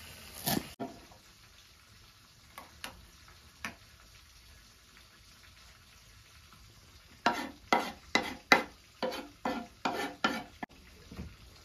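Large knife chopping fresh dill on a wooden cutting board: a few faint taps early, then a run of about a dozen sharp chops, roughly three a second, starting about seven seconds in.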